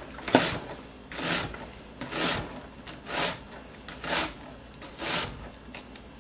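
Kitchen knife chopping through onion onto a wooden cutting board, a short crunching stroke about once a second, the first with a sharp knock of the blade on the board.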